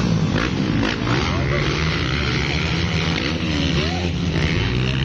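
Motocross dirt bike engines running on the track, their pitch rising and falling several times as the riders work the throttle.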